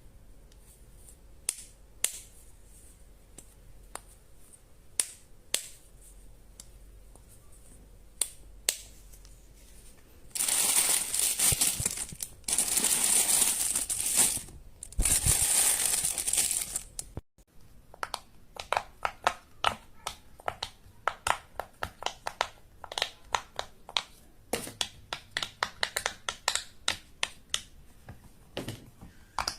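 Fidget toys being handled. There are scattered single clicks at first, then about seven seconds of crinkling, crushing noise in three bursts, then a quick, uneven run of sharp clicks and pops, about four or five a second.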